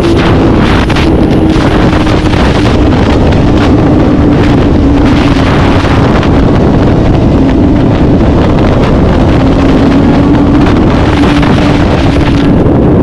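Vehicle engine running at high, steady revs, its pitch easing slowly lower, under heavy wind rumble on the microphone.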